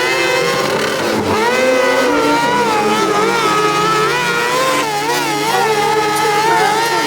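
Dirt-track sprint car engines revving as they lap a short oval, the pitch climbing and dropping over and over as the drivers get on and off the throttle.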